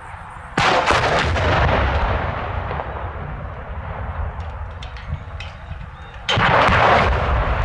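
Explosive demolition charges going off at the base of a steel lattice radio tower: a sharp blast about half a second in whose rumble dies away over several seconds, then a second blast near the end.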